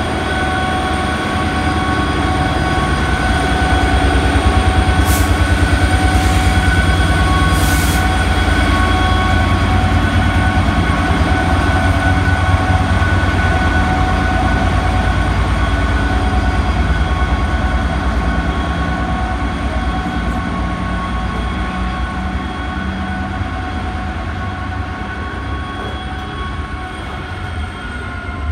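Class 66 diesel locomotive's EMD two-stroke V12 engine running steadily as it hauls a train of open box wagons past, loudest about five seconds in and then slowly fading as it draws away. A few short high-pitched wheel squeals come between five and eight seconds in.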